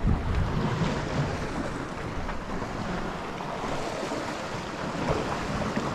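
Sea waves washing, with wind buffeting the microphone; a little louder in the first second.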